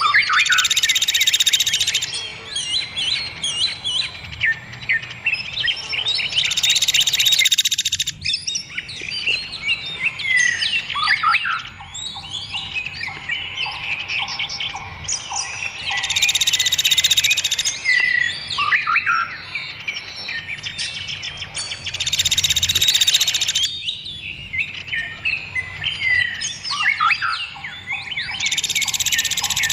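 Dense mixed songbird chorus: rapid chirps, whistles and trills overlapping, broken several times by a loud buzzy trill lasting about two seconds. It is a 'masteran' recording, dense birdsong played to teach caged songbirds to sing.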